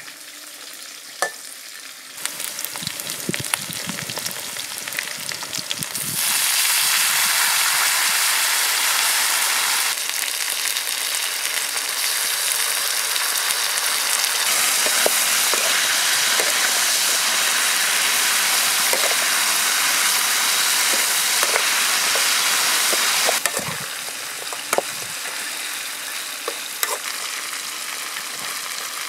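Snake meat and vegetables sizzling as they stir-fry in a steel wok, with a metal spatula clinking and scraping against the pan. The sizzle turns loud about six seconds in and drops back well before the end.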